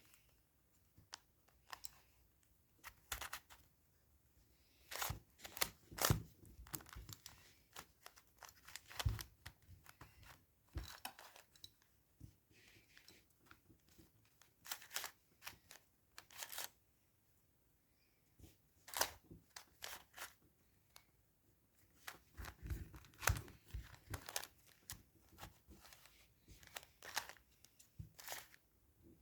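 Packaging being opened by hand: plastic wrapping and cardboard crinkling and tearing in irregular short bursts, with scattered clicks and quiet pauses between.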